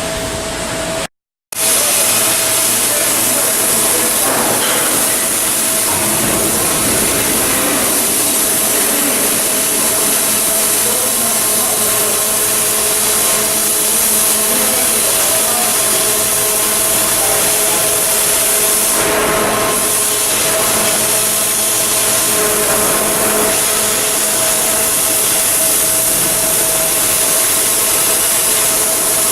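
Arc welding on a steel hull block: a steady, loud hissing and frying with a constant hum beneath it, after a short break in the sound about a second in.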